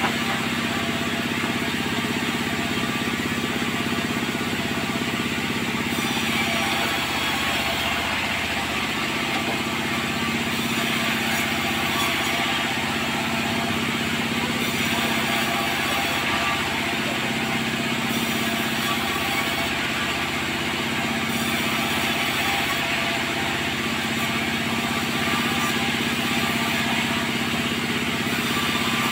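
Sawmill machinery running steadily: an engine-driven saw's steady hum, with a brighter hiss coming in from about six seconds in.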